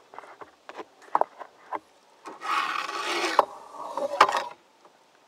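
Light knocks of wood against the canoe, then about a second of rough scraping, then a softer rub with two more sharp knocks near the end.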